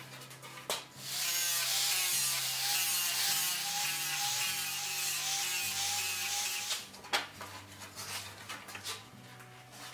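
Angle grinder grinding a buggy's iron seat iron, a loud steady hiss over a steady motor whine that starts about a second in and stops about two-thirds of the way through. A few sharp knocks and clatters follow.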